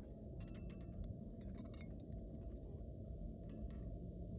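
Low steady hum with a few faint, scattered clinks and taps, as of glass or small hard objects being handled.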